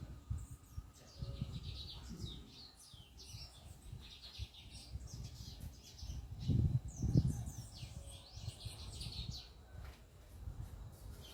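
Many birds chirping and twittering in quick, overlapping calls, with a low rumble that grows loudest about six and a half to seven and a half seconds in.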